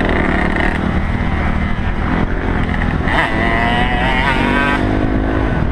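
Dirt bike engine running along a dirt trail, recorded by a GoPro on the riding bike, with the pitch climbing as the throttle is opened about three seconds in.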